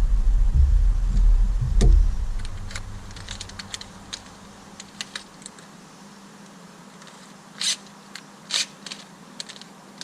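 Workshop handling noise: a low rumble for the first two seconds, then scattered light clicks and taps, with two short louder scraping rustles near the end.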